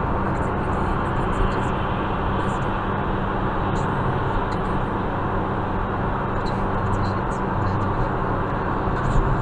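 Steady road and engine noise heard inside a Ford Focus Mk2 cruising at motorway speed: an even tyre roar with a low, constant hum underneath.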